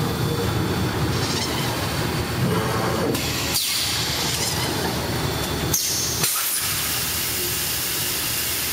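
Fully electric extrusion blow molding machine running: steady machine noise with a hiss that stops and starts in sections, and a short falling whine about three and a half seconds in.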